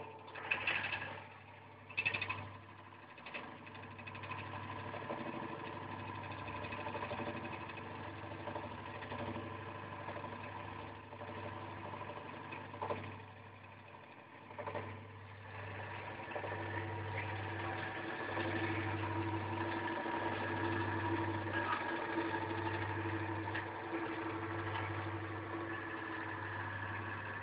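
Old Marelli three-phase induction motor (0.45 kW, six-pole) running on single-phase 220 V mains through a capacitor: a steady low hum with a higher whine. The hum pulses slowly, about once a second, in the second half, and a few knocks come near the start.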